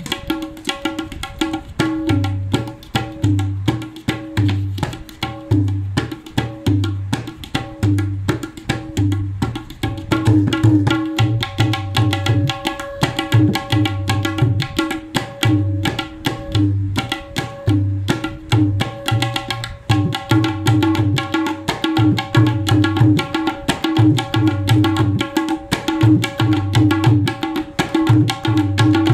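A tabla pair played solo in a fast, dense rhythm. Quick strokes on the dayan ring at one steady pitch, under a repeating pattern of deep bass strokes on the bayan.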